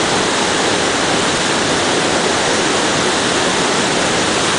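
Roar of Haew Suwat Waterfall: a steady, unbroken rush of falling water.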